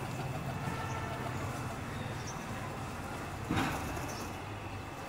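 Outdoor background with a steady low engine-like hum and one short, louder noise about three and a half seconds in.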